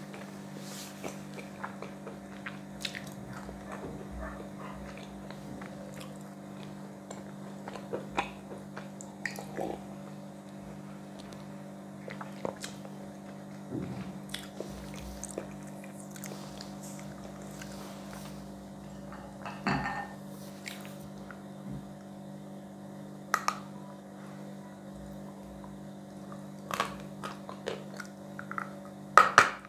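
Chalk being chewed in the mouth, close to a lapel microphone, with sparse small crunches and clicks. Near the end a run of louder, sharp crunchy bites comes as a fresh piece is bitten.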